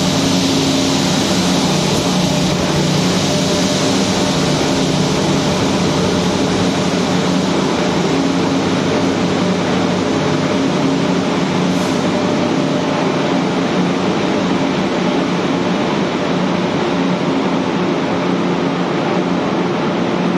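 Taiwan Railways passenger train pulling slowly out of an underground station: a steady, loud engine hum holding several low tones as the louvred power car goes by, then the coaches rolling past with a continuous rumble.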